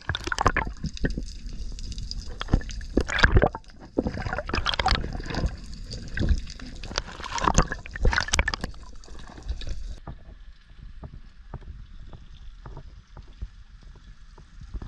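Underwater handling noise: water rushing and a run of knocks and thuds as a speared amberjack is gripped and moved about against the camera. About ten seconds in it turns quieter, leaving only light clicks.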